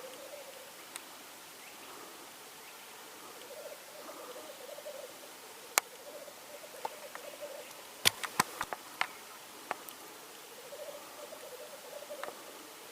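Male black grouse giving their bubbling, cooing display song (rookooing) in long repeated phrases, the spring lek song of displaying cocks. Several sharp clicks cut through it, one about six seconds in and a quick cluster around eight to nine seconds.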